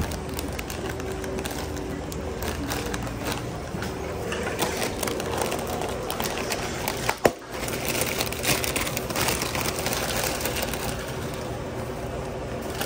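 A foil bag of Doritos Cool Ranch tortilla chips crinkling and crackling as gloved hands crush the chips inside it. There is one sharp snap about seven seconds in. Near the end the crushed chips are tipped out of the opened bag.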